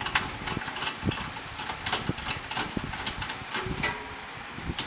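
Irregular clicks and knocks of a desktop computer's hardware being handled during disassembly, with metal parts and small pieces tapping against the case and the table.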